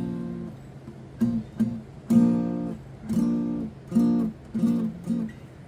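Acoustic guitar strumming a B flat major chord: one chord rings out at the start, then comes a series of short strums, the one about two seconds in the loudest and longest.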